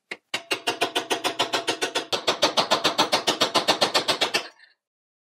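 Tool-steel-hardfaced chisel edge pushed along the edge of a steel bench top, chattering in a fast even rattle of about ten strokes a second as it shaves a curl of steel, then stopping abruptly. The hardfaced edge is cutting the steel.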